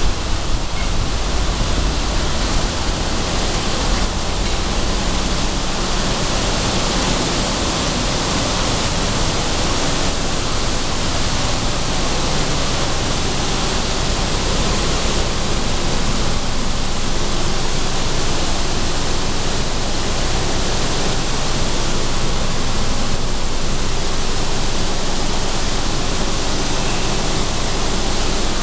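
Sunflower seed de-hulling machinery running: a loud, steady rushing noise of the de-hullers with seeds and hulls pouring through the chutes, over a low rumble that eases a few seconds in.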